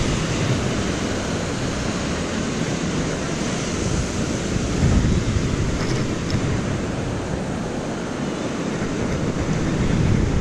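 Wind buffeting the microphone over a steady wash of beach surf, the low rumble of the gusts swelling about halfway through and again near the end.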